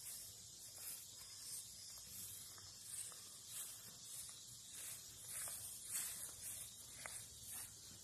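Faint footsteps swishing through grass, about one step every two-thirds of a second, over a steady high hiss.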